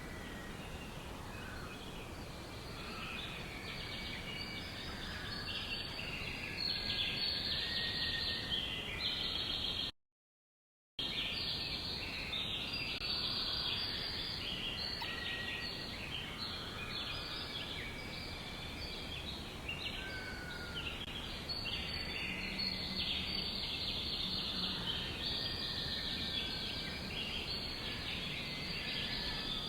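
A dense chorus of many small songbirds chirping and twittering over one another, high-pitched and continuous. The sound cuts out completely for about a second about ten seconds in.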